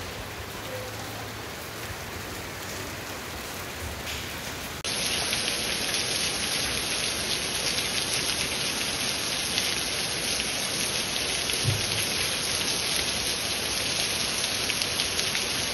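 Steady rain falling. About five seconds in it changes suddenly to a louder, denser downpour with a steady hiss.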